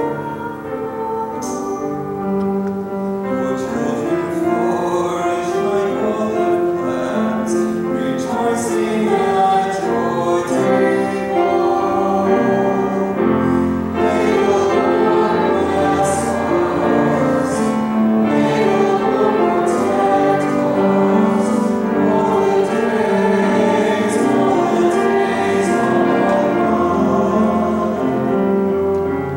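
Responsorial psalm sung in church: voices singing a melody with instrumental accompaniment.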